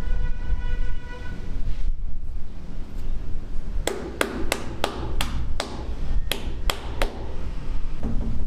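Hammer blows on a building site: about nine sharp strikes, roughly three a second with a short break midway, each ringing briefly. A brief pitched ring comes at the start, and wind rumbles on the microphone throughout.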